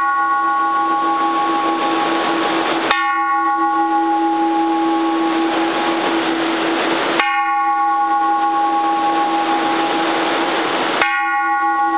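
A bronze flanged Japanese Buddhist temple bell is struck with a wooden striker three times, about four seconds apart. Each strike rings on with a steady low tone and several higher tones, and the bell is already ringing from a strike just before. All of it sits over the steady hiss of heavy rain on a tin roof.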